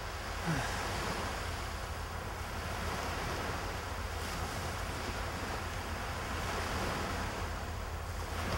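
Small sea waves washing steadily onto a sandy shore, with a low rumble of wind on the microphone. A short falling sound comes about half a second in.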